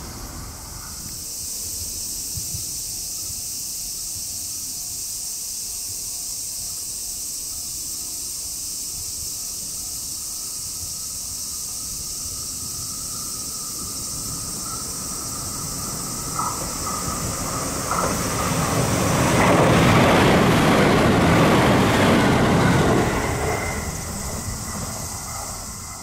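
An electric train approaching and passing close by, its wheels on the rails swelling to their loudest about twenty seconds in, then fading. Before it arrives, a distant level-crossing warning bell dings evenly for about ten seconds, over a steady high hiss.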